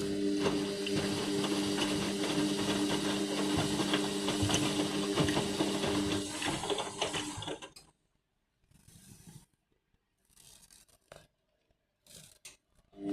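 Indesit MTWC71252WUK washing machine tumbling its drum on the first rinse: a steady motor hum with churning noise, which winds down and stops about seven seconds in, leaving a pause with only a few faint noises before the motor starts again at the very end.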